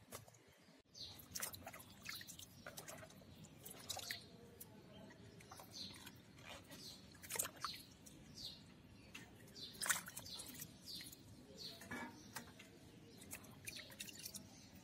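Water dripping and splashing in a bowl as cauliflower florets are washed and broken apart by hand, with small snaps of stems. A scatter of short drips and clicks, a few louder splashes among them.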